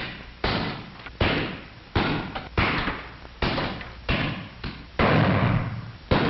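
Rifle shots from the firing line, a sharp report with a decaying echo roughly every three-quarters of a second, irregularly spaced.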